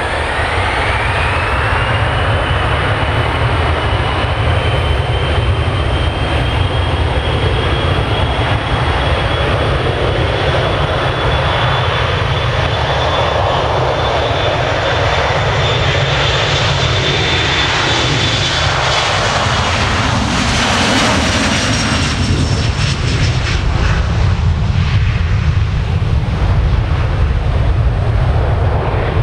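Boeing 737-500's twin CFM56 turbofans spooling up to takeoff power. A whine rises over the first couple of seconds and then holds steady over a deep rumble as the jet rolls down the runway and climbs away. The whine fades out past the midpoint, leaving the rumble.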